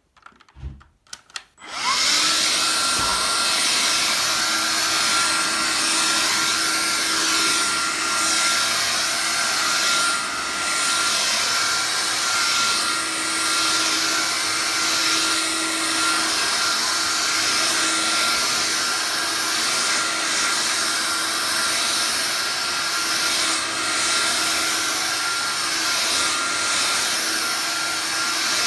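After a few faint clicks, a Vax Air Cordless Lift cordless upright vacuum cleaner starts up about two seconds in and runs steadily, with a steady high whine over the rush of air.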